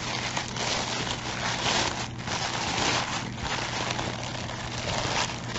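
White tissue paper crinkling and rustling in uneven surges as hands unwrap it.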